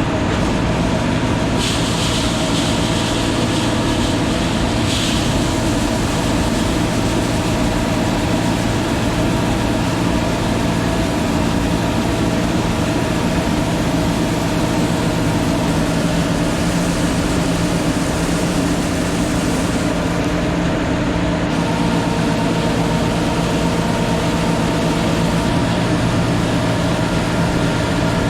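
Large diesel engine of harvest machinery running steadily at constant speed. A brief rise in higher hiss comes about two seconds in and lasts roughly three seconds.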